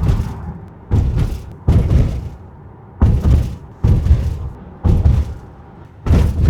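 Inside a Jeep Grand Cherokee's cabin driving over bumpy road: a series of dull thuds from the tyres and suspension, about one a second, with the earlier rattling from the rear seat area almost gone after the repair.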